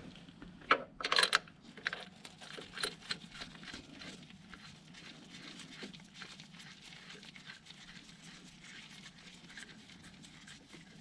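A few sharp metallic clicks and knocks about a second in, then faint, irregular light ticks and handling noise. This is a crankshaft pulley bolt being started and threaded in by hand into a new ATI harmonic damper.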